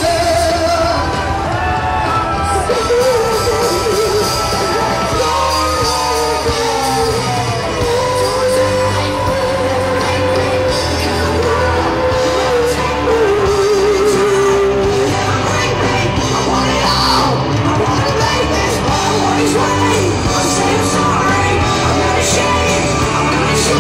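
Live rock band playing loud through a PA: electric guitars, bass and drums under a sung melody of long, wavering held notes, with yells from the crowd.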